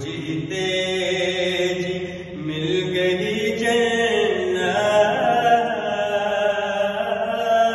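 A man's solo voice chanting an Urdu manqabat, a devotional praise poem, in long held melodic phrases, with a short pause for breath about two seconds in.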